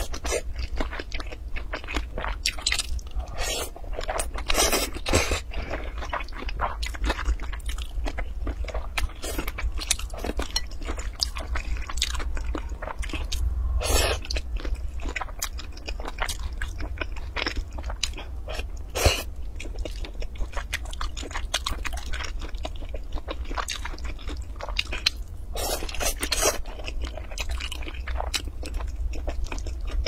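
Close-miked eating sounds: a person chewing and crunching food in a dense run of wet crackles and clicks, with one sharp click about 19 seconds in.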